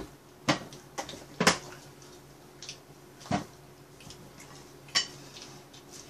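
Chopsticks clicking and tapping against plates during a meal: about half a dozen short, sharp clicks scattered through, the loudest about a second and a half in and near five seconds. A steady low hum runs underneath.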